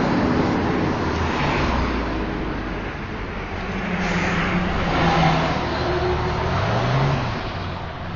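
Road vehicle engine and traffic noise, swelling and fading, with an engine note that rises near the end.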